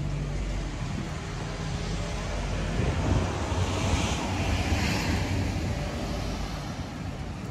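A motor vehicle passing on the street: a low engine rumble with tyre hiss that swells about three to five seconds in, then fades away.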